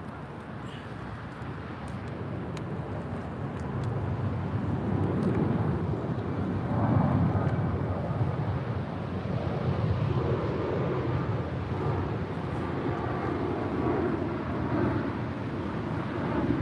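Low, steady rumble of distant engines, growing louder over the first several seconds and swelling a few times.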